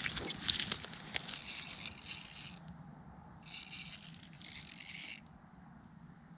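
Spinning reel being cranked: a few sharp clicks from handling the reel, then a high steady whir in three short spells of reeling.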